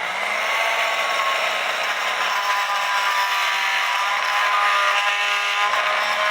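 Oscillating multi-tool running steadily, its vibrating blade cutting through the glue holding a bellows tube in a wooden cuckoo clock case.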